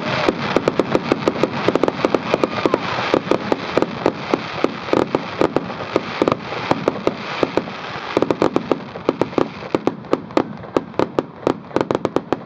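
Fireworks crackling: a dense run of sharp pops and cracks, several a second, that thins out toward the end.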